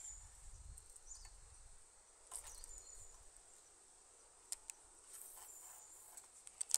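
Faint outdoor ambience of short, high-pitched chirps, with a few sharp clicks at about two, four and a half and nearly seven seconds in.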